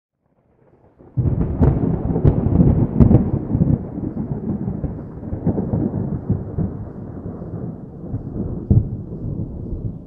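Thunder from a squall-line thunderstorm: a sudden loud clap about a second in, with sharp cracks over the next two seconds, then a long rolling rumble that slowly fades.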